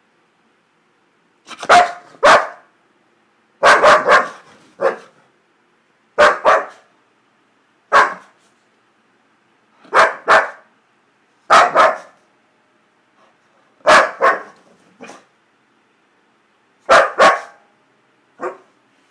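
Boxer-type dog giving playful, excited barks: short groups of one to three loud barks, roughly every two seconds.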